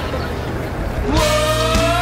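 Pop song soundtrack. After a busy, noisy mix in the first second, the song comes in fully about a second in, with a held sung melody over a steady beat.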